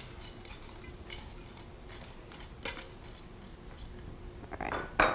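A spoon stirring moist bread-cube stuffing in an enameled cast-iron Dutch oven, with light scrapes and taps against the pot. A few louder knocks come near the end.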